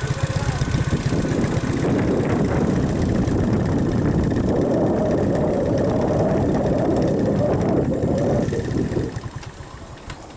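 A motor vehicle's engine running as it travels. It gets louder and rougher about two seconds in, then drops away near the end.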